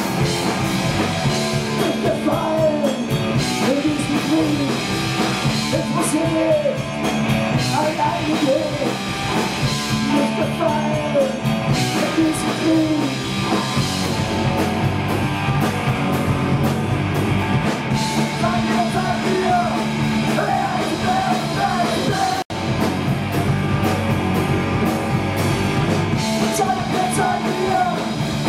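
A punk band playing a song live, with singing over guitars and drums. The sound cuts out for an instant about 22 seconds in.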